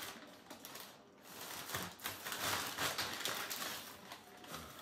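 Plastic packaging crinkling and rustling in the hands: a poly mailer and a clear plastic bag being opened, with many small crackles.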